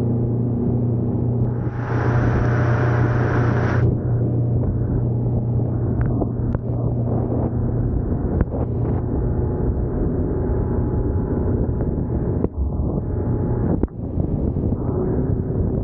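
Yamaha outboard motor running at speed with a steady drone, mixed with wind buffeting the microphone and the rush of the wake. A brighter hiss comes in about two seconds in and lasts about two seconds, and a few sharp knocks are heard later on.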